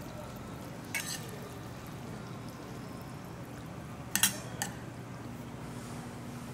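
Spoon and chopsticks clinking against a metal bowl as buckwheat noodles are stirred in broth: one clink about a second in, then a quick run of three about four seconds in.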